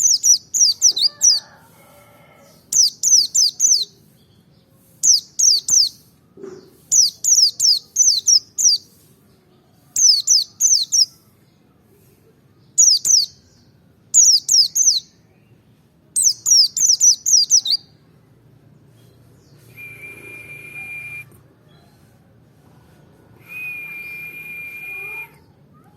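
Pleci merapi white-eye singing in the 'ngalas' style: quick runs of high, falling chirps in bursts of about a second, repeated every couple of seconds, as on a lure (pancing) track meant to stir other white-eyes into song. Near the end come two steady, high whistled tones, each about a second and a half long.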